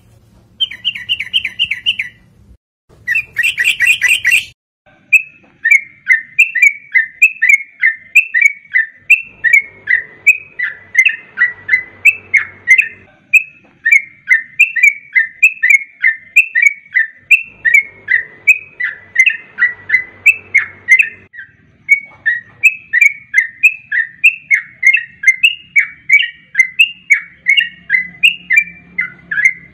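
Yellow-vented bulbul calling: a couple of short, harsh chattering bursts, then a long fast run of short bubbly chirps, about three a second, with brief breaks.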